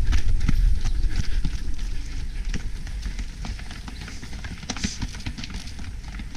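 Running footsteps of a runner wearing the camera: quick, uneven footfalls with the camera jolting, over a low wind rumble on the microphone. The footfalls are loudest in the first two seconds.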